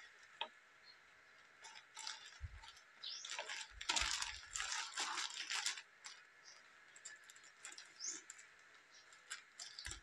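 Scissors cutting through a plastic courier mailer, with the plastic crinkling and rustling in bursts that are busiest from about two to six seconds in, then scattered snips and clicks.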